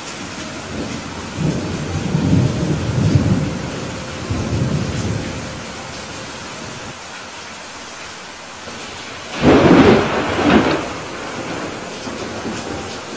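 Rainstorm: steady rain hiss with thunder, a low rolling rumble in the first few seconds and a louder, sharper thunderclap about nine and a half seconds in.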